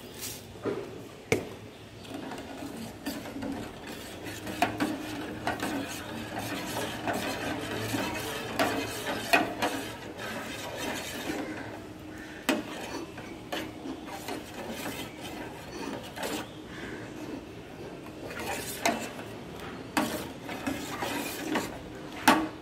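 A metal spatula stirring thickening milk in a metal pot, scraping and knocking against the pot with irregular clinks. One of the sharpest clinks comes near the end.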